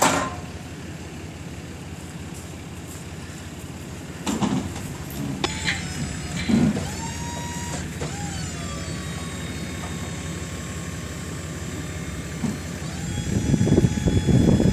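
The motor of the powered shed-moving equipment whining as it works, its pitch gliding down about six seconds in, holding steady, then rising again near the end. There are a few low thumps along the way.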